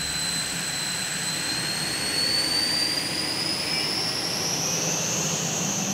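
Northrop T-38 Talon trainer's twin turbojet engines on a takeoff run: a steady rush of jet noise with a whine that climbs steadily in pitch.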